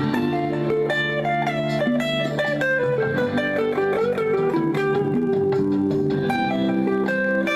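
Guitar playing a melody over a backing track of accompanying chords.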